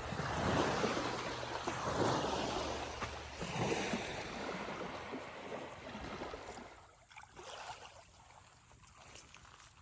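Small lake waves washing onto a beach in slow surges, with wind rumbling on the microphone. The sound grows quieter after about six seconds.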